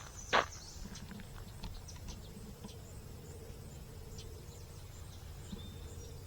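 Insects buzzing faintly over a low, steady outdoor background, with a single footstep about half a second in.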